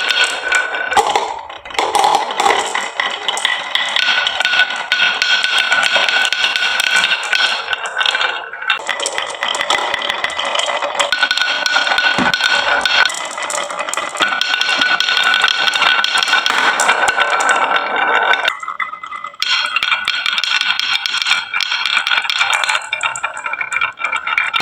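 Marbles rolling and rattling down a wooden marble run track, with a dense stream of clicks and clatter and a steady ringing rolling tone that comes and goes.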